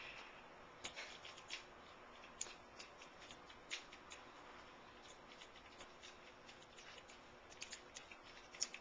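Faint, irregular clicks and light rattles of a plastic Transformers figure's hinged parts being moved and handled, with a small cluster of clicks near the end.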